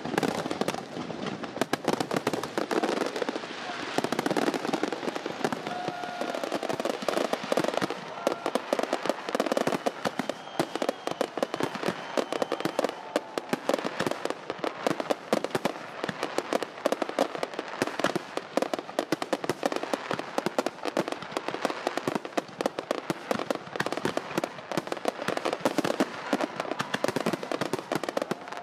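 Fireworks display going off without a break: dense, rapid crackling and popping from many overlapping bursts.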